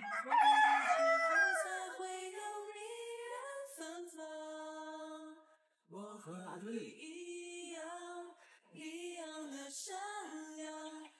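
A voice singing a slow melody with little or no accompaniment, long held notes that waver and glide between pitches, in phrases broken by short pauses about halfway through and again a little later.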